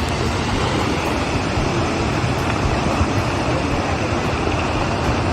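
Landslide debris rushing down a slope: a loud, steady rushing rumble with no separate crashes.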